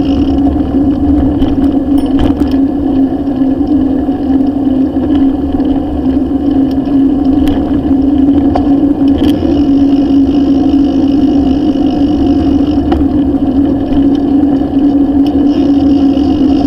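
Steady rush of wind on the microphone of a bicycle-mounted camera during riding, with the tyre rumble of the bike on asphalt, and now and then a short click or rattle from the bike.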